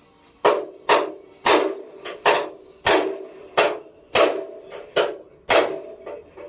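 Hand hammer striking a steel tool held against a rivet in a steel chassis frame, driving the rivet out. The blows come steadily, about three every two seconds, and each one rings through the frame.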